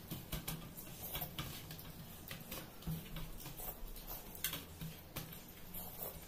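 Irregular small clicks and smacks of eating by hand: fingers working rice and curry on steel plates and mouths chewing, a few a second.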